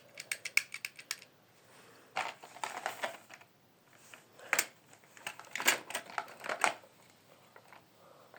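Runs of quick, light clicks and taps, like hard small objects being handled, in several short clusters with a single sharper click about four and a half seconds in.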